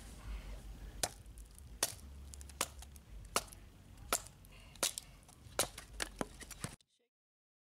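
Large Bowie knife chopping into wood with sharp, evenly spaced strikes, about one every three-quarters of a second and eight in all. The sound cuts off suddenly near the end.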